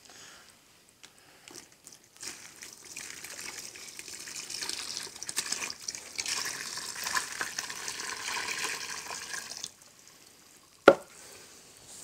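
Water poured from a plastic bucket into a bucket of dry castable refractory mix: a steady splashing pour of about seven seconds that stops abruptly. A single sharp knock follows near the end.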